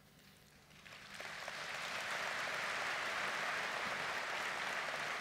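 Large audience applauding, starting about a second in and quickly swelling to a steady level.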